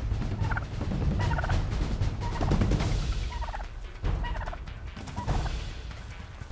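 White domestic turkeys gobbling in about six short, rattling bursts, over a steady low rumble.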